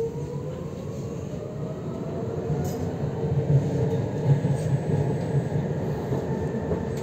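Tram's electric traction motors whining and rising in pitch during the first few seconds as it accelerates, then running steadily. Under the whine is a continuous rumble of wheels on rails, heard from inside the car.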